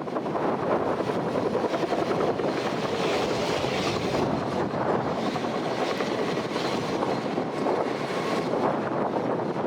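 Aircraft engines running, heard as a steady rumbling noise with a faint whine, mixed with strong wind buffeting the microphone.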